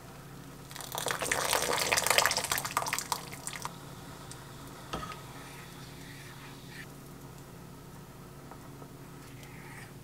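A soaked broth pack lifted out of simmering stock in an earthenware pot, water dripping and splashing back into the pot for about three seconds. A single light knock comes about five seconds in, over a steady low hum.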